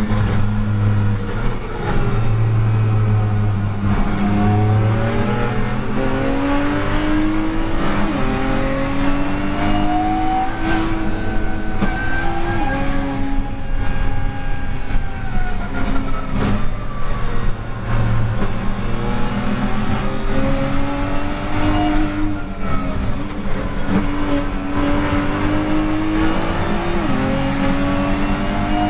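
BMW M2 Competition's twin-turbo straight-six heard from inside the car under hard acceleration on track: the engine note climbs through the revs and drops suddenly at each upshift, again and again, over steady road and wind noise.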